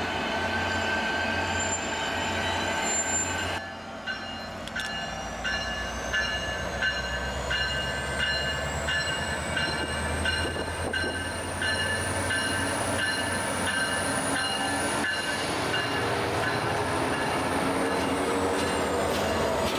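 Caltrain diesel passenger train with MP36PH and F40PH locomotives running through the station. Low diesel rumble, with a high squeal that slowly rises, holds and falls, and a repeated ringing struck about twice a second through the middle.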